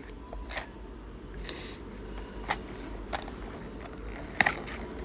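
Handling noise: a few sharp clicks, the loudest near the end, and a brief scraping rustle about one and a half seconds in, over a low hum.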